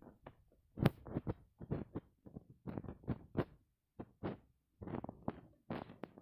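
Footsteps on dry grass and cracked earth: irregular soft thuds and rustles, two to three a second, with a brief pause a little past the middle.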